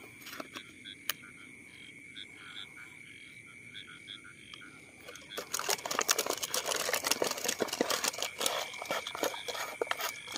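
Frogs calling over a steady high insect drone. About five and a half seconds in, a plastic bottle is handled right by the microphone, giving loud, dense crackling and crinkling that drowns the chorus until near the end.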